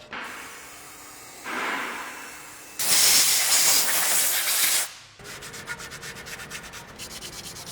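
Rapid abrasive scrubbing strokes on metal, cleaning rust and grime from a steering knuckle's hub-bearing bore, broken by a loud hiss of compressed air blowing the dust off for about two seconds in the middle, after a softer hiss just before it.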